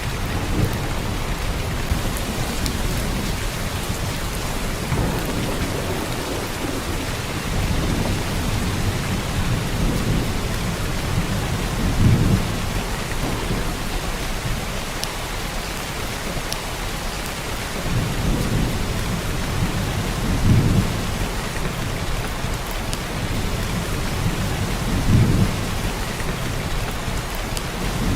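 Heavy downpour of rain, a steady even hiss of drops. Low rumbles swell up briefly three times, about 12, 20 and 25 seconds in.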